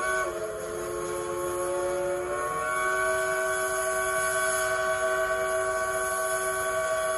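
Steam locomotive No. 192's three-chime Southern-style whistle blowing one long blast. Its chord shifts just after the start, then rises slightly and grows louder about two and a half seconds in, and holds steady from there.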